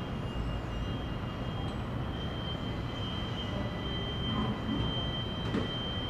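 Construction site machinery: a steady low rumble with a thin, high whine held on one pitch, and a light knock near the end.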